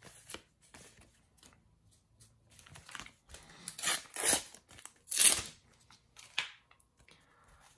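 Foil sticker packet being torn open by hand: several short rips, the loudest about four and five seconds in, amid light rustling of the paper stickers being handled.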